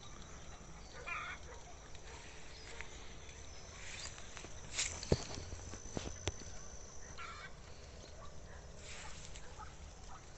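Farm fowl calling in the distance, a few short calls over a steady outdoor background, with two sharp clicks about five and six seconds in.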